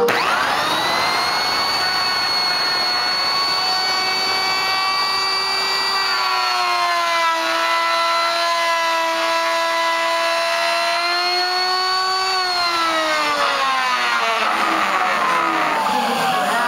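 Porter-Cable electric router motor whining as it spins up, then routing a chamber into a redwood surfboard stringer. Its pitch drops and holds lower for several seconds while the bit is under load in the wood, recovers briefly, then slides steadily down over the last few seconds as the motor winds down.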